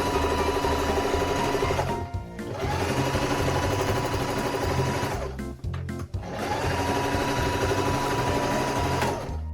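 Electric home sewing machine stitching in three runs. The motor whine rises in pitch as each run speeds up, and it stops briefly twice, about two seconds in and midway. Background music plays underneath.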